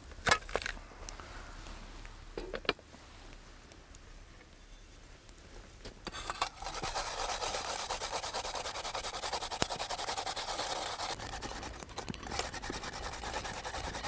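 A kitchen knife chopping through peeled lotus root on a wooden board, a few sharp cuts. Then, about six seconds in, the lotus root is grated on a metal hand grater: a steady, rapid rasping.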